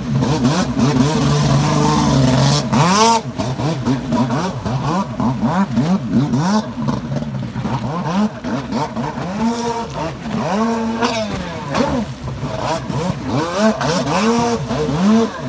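Kawasaki 550 stand-up jet ski's two-stroke twin engine revving up and down again and again under quick throttle blips, each rev rising and falling in pitch. Water spray hisses beneath it.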